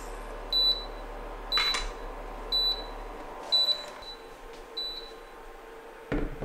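Induction hob giving five short, high beeps about a second apart after the pot is lifted off its cooking zone: the hob signalling that no pan is on the zone. A faint steady hum runs underneath, with a sharp knock about 1.7 s in and a low thump near the end.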